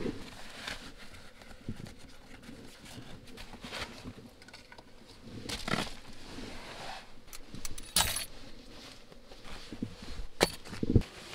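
Handling noises in a cramped truck-bed camper: fabric rustling with scattered clicks, clinks and knocks as shoes come off and belongings such as a wallet are set down. The sharpest knocks come about eight seconds in and again just past ten.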